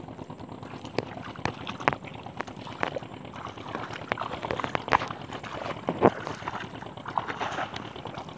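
Shallow river water splashing and sloshing in irregular bursts, with sharp slaps loudest about a second, two seconds, five seconds and six seconds in, as people wade out into it with a fishing net.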